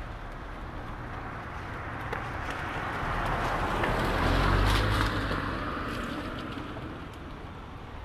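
A car passing on a wet road: its tyre hiss and low rumble swell to a peak about halfway through, then fade away. Light ticks of raindrops land on an umbrella.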